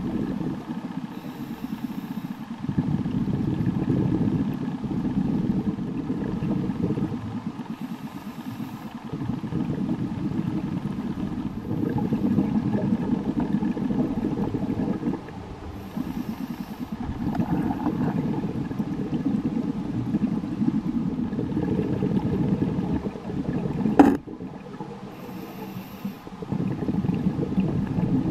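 Scuba diver breathing through a regulator, heard underwater: long bursts of exhaled bubbles every several seconds, with short hissing inhalations in the quieter gaps between. A single sharp click near the end.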